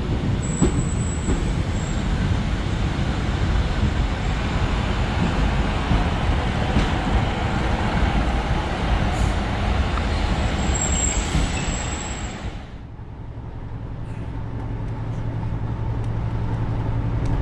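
Passenger train running past along a station platform, a rushing rumble with a thin high squeal twice, near the start and about eleven seconds in. About thirteen seconds in it gives way to the steady low hum of a train carriage in motion, slowly growing louder.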